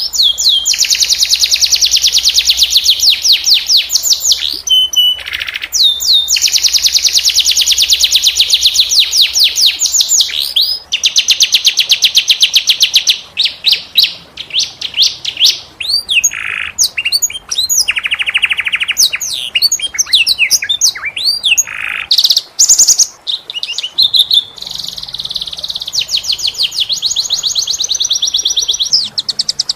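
Domestic canary singing: long, very rapid rolling trills, each held for several seconds, with a few short breaks and swooping single notes in the middle before the rolls resume.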